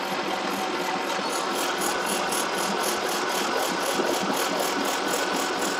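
South Bend metal lathe running slowly, its cutting tool taking the high spots off a belt-grinder wheel's rubber face. A steady machine noise with a light, rapid ticking of about five a second that becomes plainer about a second in.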